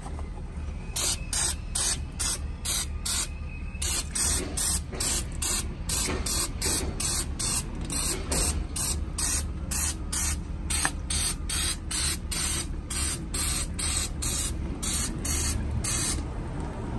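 Aerosol brake cleaner sprayed in short, rapid hissing bursts, a little over two a second, to degrease the exposed ring gear of a front axle differential. There is a brief pause about three seconds in.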